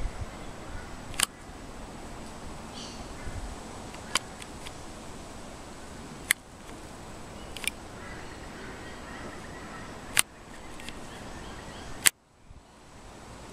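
Outdoor ambience with faint bird chirps, broken by six sharp clicks a second or two apart. The sound dips briefly after the last click near the end.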